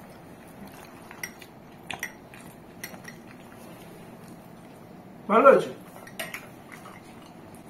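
Metal spoon clinking against glass bowls and plates as potato curry is scooped up, a few light separate clinks spread through. About five seconds in, a brief burst of voice is the loudest sound.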